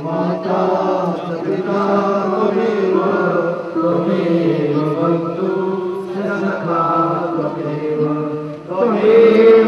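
Voices chanting a devotional aarti hymn in unison with long held notes. It dips briefly near the end, then a louder line begins.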